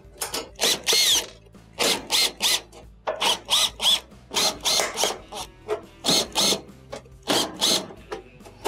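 Cordless drill/driver backing out sheet-metal screws from the back panel of an electric range: short bursts of motor whine about two a second as the trigger is pulsed, some rising in pitch as the motor spins up.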